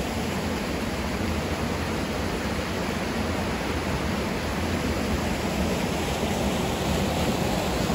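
Steady rush of a mountain creek's whitewater tumbling over boulders and rapids.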